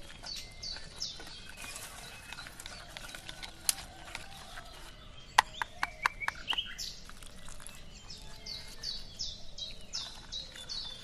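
Birds chirping in a run of short falling chirps, near the start and again through the last few seconds. A wire whisk works through thick batter, with a cluster of sharp metallic clinks against the bowl around the middle.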